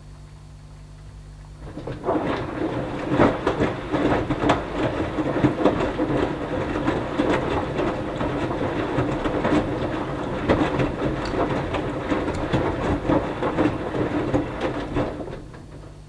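Hoover Dynamic Next washing machine's drum turning during the wash: wet fleece laundry tumbling and water sloshing, with many small irregular knocks and splashes over the motor. It starts about two seconds in and stops shortly before the end, leaving only a low hum during the drum's pause.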